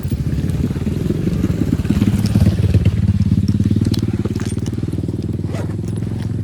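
Motorcycle engine running with fast, even firing pulses. It picks up a little about two seconds in and then holds steady.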